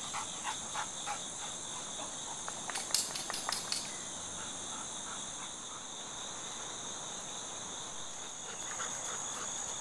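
Steady high-pitched insect chorus of crickets, with a few sharp clicks and crackles about three seconds in.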